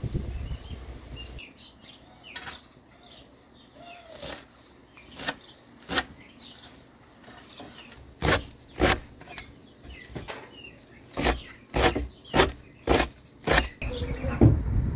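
Fresh herbs (parsley, cilantro, purple basil) being handled and picked over by hand: a dozen or so sharp snaps and rustles of stems and leaves, in a quick run of about two a second near the end. Birds chirp faintly between them.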